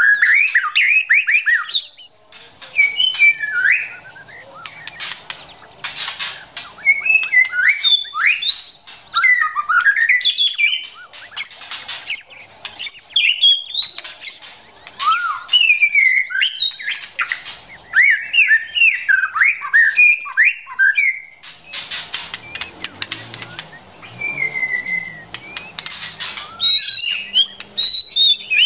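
White-rumped shama singing: a varied run of rich whistled phrases with brief pauses between them, mixed with short harsh notes.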